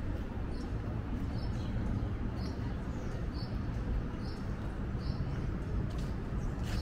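Steady low rumble of outdoor city ambience, with a short high chirp or squeak repeating about once a second.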